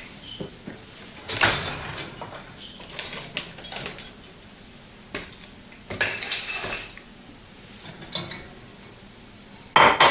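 Dishes clinking and clattering in short, scattered knocks as they are taken out of a dishwasher's racks, with the loudest clatter near the end.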